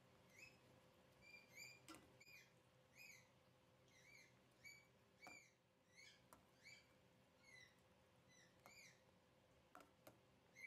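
A steel spoon squeaking against a stainless steel pan as it stirs a thick spice masala, with a short squeak on each stroke about twice a second and a few light metal clicks. The squeaks stop near the end.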